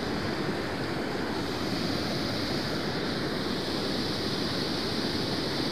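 Steady rushing of a small river cascade pouring over a rock ledge.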